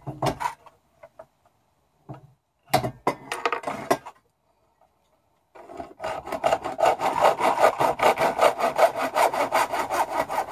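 A hand saw cutting through a length of tube, with rapid, even back-and-forth strokes starting about halfway in. Before that, a few scattered knocks as the tube and tool are handled.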